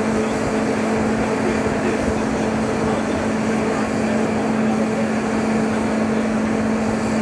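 Steady mechanical drone with a constant low hum and a fainter higher hum above it, unchanging throughout.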